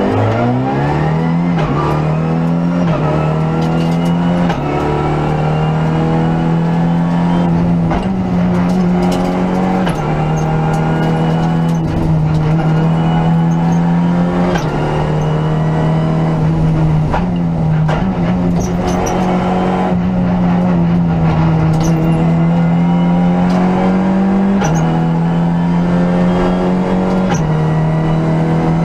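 Renault Clio Rally5's turbocharged 1.3-litre four-cylinder engine under hard acceleration, heard inside the cabin: the engine note climbs and then drops at each gear change, roughly every two to four seconds, with scattered sharp knocks.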